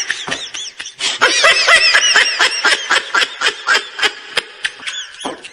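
High-pitched snickering laughter, a quick run of short laughs with a brief pause about a second in, tailing off near the end.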